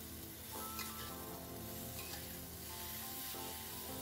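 Bean sprouts and tempeh sizzling as they are stir-fried in a wok, tossed with a metal spatula. Background music plays throughout.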